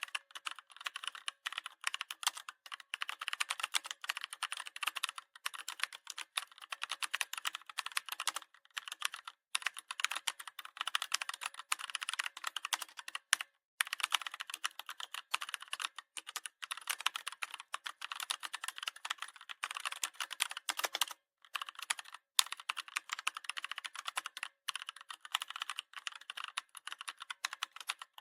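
Fast typing on a computer keyboard: a dense, rapid run of key clicks broken by brief pauses every few seconds.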